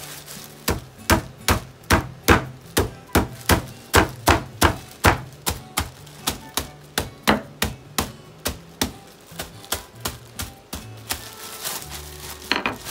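Wooden rolling pin pounding cucumber pieces in a plastic bag on a cloth-covered steel counter: a steady run of dull whacks, about two or three a second, stopping about eleven seconds in. A short rustle of the plastic bag follows near the end.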